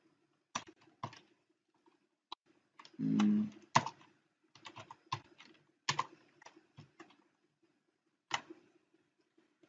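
Computer keyboard keystrokes: irregular single taps and a short quick run of keys.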